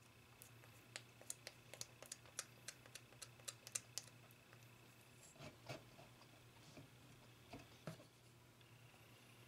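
Faint, quick clicking, about three or four clicks a second, as a plastic spoon scrapes and taps along the dried kernels of a corn-cob half. A few soft knocks follow later as the pieces are handled on the workbench.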